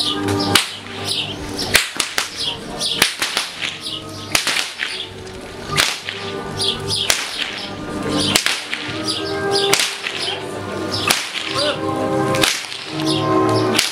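Herdsmen's long whips cracking one after another, about a dozen sharp cracks at uneven spacing, roughly one a second, over background music.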